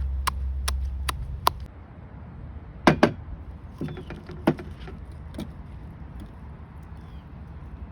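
A run of evenly spaced sharp clicks, about two or three a second, over a low hum that fades out, then a loud double knock about three seconds in and a few scattered lighter knocks.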